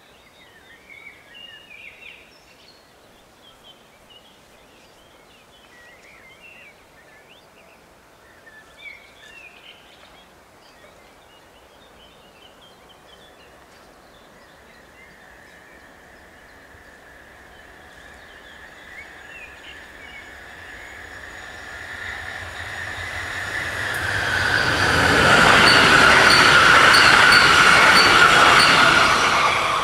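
Birds chirping, then an Arriva FLIRT electric train approaching. From about halfway a steady hum from the rails rises, and the train grows loud as it runs through the level crossing near the end, with a regular light clicking from the wheels.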